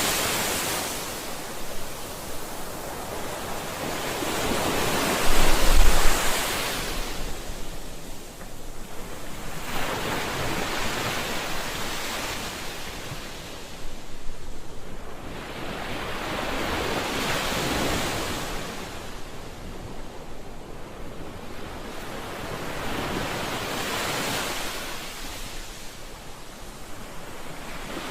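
Ocean surf: waves breaking and washing in as a rushing hiss that swells and fades every few seconds. About five seconds in there is a brief, louder low rumble.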